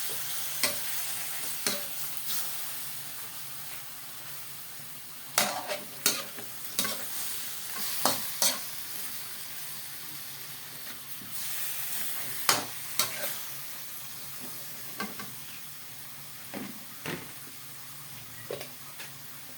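Chicken pieces frying in a pan with garlic, onions and tomatoes, sizzling steadily while being stirred. Irregular clicks and knocks as the stirring utensil hits the pan.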